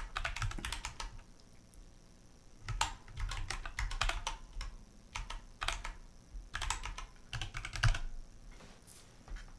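Computer keyboard being typed on in short bursts of rapid keystrokes with pauses between them.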